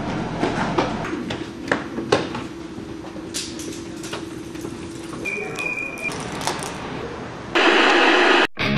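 Hurried footsteps and knocks on a hard hallway floor and a door being pushed open, over a steady low hum, with a brief high squeak a little past the middle. About three quarters of the way through, a loud hiss of TV static cuts in and cuts off sharply.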